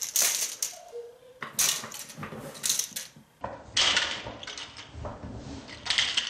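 Hard plastic Lego Technic pieces clicking and clattering in several short bursts as a small Lego Technic truck's wheels climb over and drop off a Lego Technic Formula One car.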